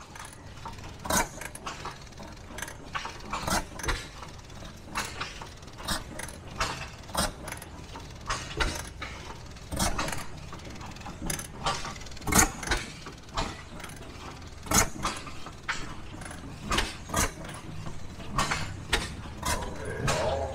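Old stationary gas engine running, firing at uneven intervals with sharp pops and mechanical clatter, about one or two a second, over a steady low rumble.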